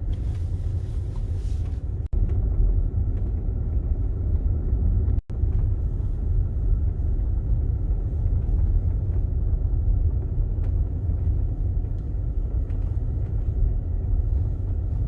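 Steady low road and tyre rumble inside a moving car's cabin. The sound cuts out for an instant twice, about two and five seconds in.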